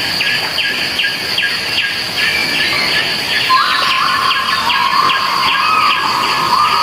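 Tropical forest ambience: insects keep up a steady high drone while a bird repeats short chirps about three times a second. About halfway a long, slightly falling whistle joins in.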